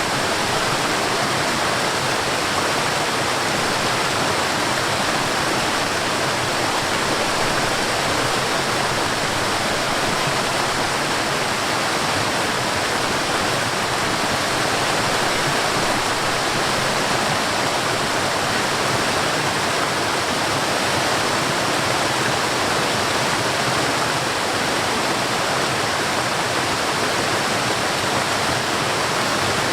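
Forest waterfall: water falling and rushing in a steady, dense hiss with no change.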